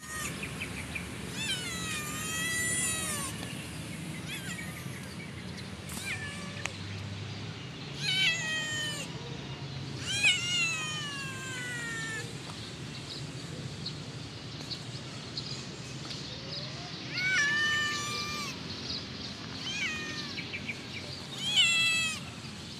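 Orange-and-white kitten meowing repeatedly, about six high calls spaced a few seconds apart, each falling in pitch.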